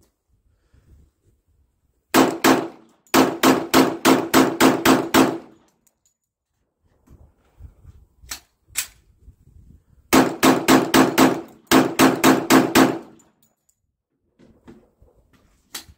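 Glock 41 pistol in .45 ACP fired in rapid strings of about four shots a second. There are several groups: a pair of shots, a string of about nine, another pair, then two strings of five or six.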